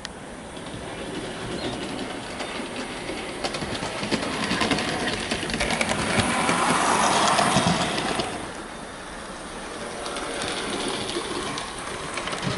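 Hornby OO gauge Princess Coronation Class model steam locomotive running on the layout track: motor whirr and wheel clicks, running smoothly without grinding or stuttering. It gets louder as the model passes close, about six to eight seconds in, then fades.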